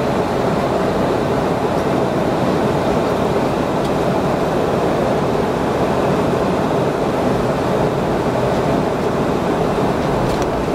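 Steady cabin noise inside a Boeing 717-200 airliner climbing after takeoff: the rush of airflow and the tail-mounted Rolls-Royce BR715 turbofans, even and unchanging, with a couple of faint ticks near the end.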